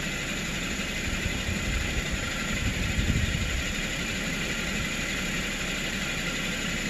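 2010 Toyota Corolla S four-cylinder engine idling steadily, briefly a little louder about three seconds in. The car has a pending cylinder 4 misfire code (P0304).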